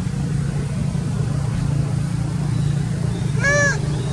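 A macaque gives one short cry, a brief call that rises and falls in pitch, about three and a half seconds in. A steady low hum runs underneath.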